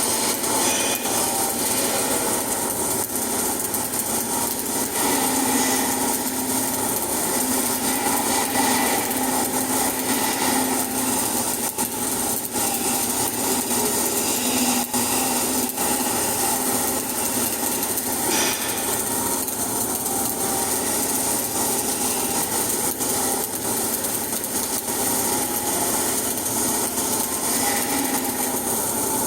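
Flux-cored arc welding: the arc crackling steadily and without a break.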